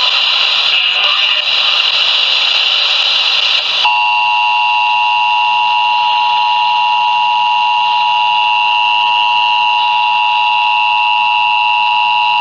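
Emergency Alert System attention signal over the radio: a loud, steady two-tone alarm (853 and 960 Hz) that starts about four seconds in, after a few seconds of harsh, noisy static. It announces that an emergency alert activation, here a severe thunderstorm warning, is about to be read.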